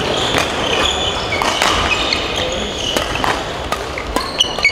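Indoor badminton play: a few sharp racket strikes on the shuttlecock and short, high squeaks of court shoes on the floor, over the steady noise of a large sports hall.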